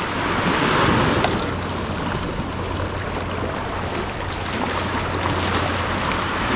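Waves washing onto a beach: a steady rushing noise that swells about a second in, with some wind.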